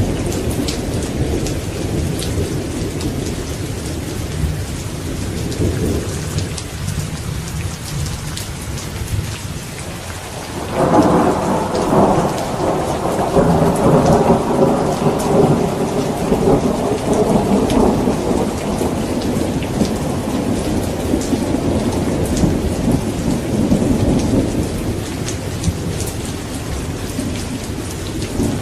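Steady rain with thunder. A low rumble rolls under the rain, then about eleven seconds in a louder peal of thunder breaks in suddenly and rumbles on, dying away slowly over the next fifteen seconds.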